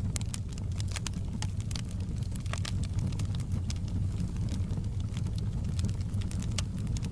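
Fireplace fire crackling: frequent irregular sharp pops and snaps over a steady low rumble.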